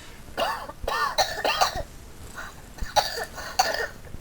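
A person coughing in a series of about six short, harsh coughs, several with a high strained voice tone in them. It is a cough of the kind called very exhausting.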